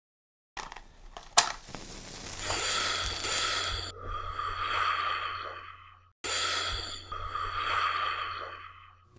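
Smoking sound effect: a click about a second and a half in, then long hissing breaths drawn in and blown out, as of someone dragging on a cigarette and exhaling smoke, with a short break just after six seconds.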